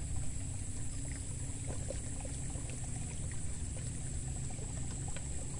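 Steady low rumble of outdoor background noise with a faint hiss and a few soft ticks; no single event stands out.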